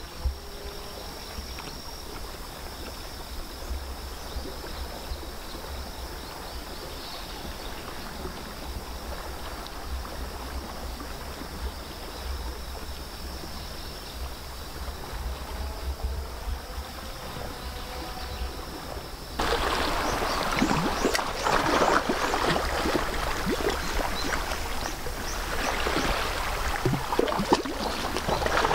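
Calm sea water lapping and sloshing against shoreline rocks, with a low wind rumble. About two-thirds of the way through, the water sound becomes suddenly louder and closer, with irregular splashes.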